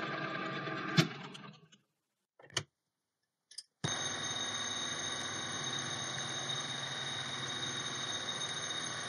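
Metal lathe spindle running with a click about a second in, then dying away to silence, followed by a couple of small knocks. The lathe then runs again, turning off-centre aluminium stock held in a three-jaw chuck: a steady machine whir with a constant high whine, starting suddenly.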